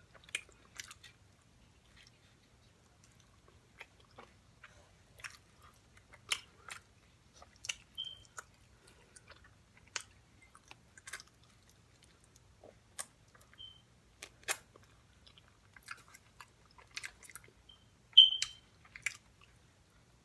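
Close-miked chewing: wet mouth clicks and smacks at irregular intervals, from a person eating fast-food chicken wings and fries. There are a few brief high squeaks, and the loudest burst of smacking comes near the end.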